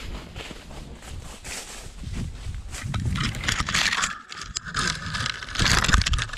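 A horse walking along a woodland trail, its hoofbeats coming at an even pace. About halfway through, louder scraping and rustling join in as branches and leaves brush against the rider and camera.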